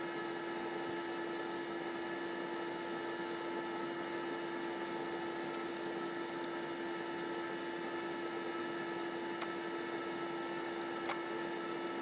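Steady machine-like hum with one constant mid-pitched tone, and a couple of faint clicks near the end.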